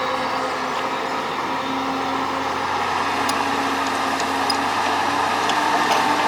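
Heavy machinery engine running steadily, its tone rising slightly in pitch towards the end.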